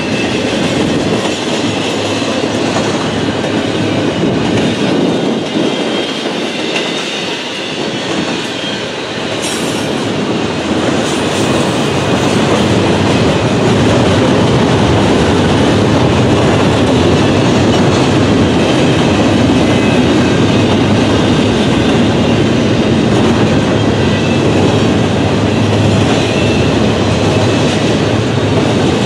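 Double-stack container train rolling past, its steel wheels running steadily on the rails. The sound eases a little a few seconds in and grows louder after about twelve seconds.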